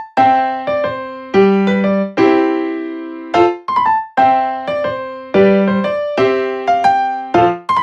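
Background music: a piano-style keyboard plays a light melody of struck notes and chords in a steady rhythm, each note fading away before the next.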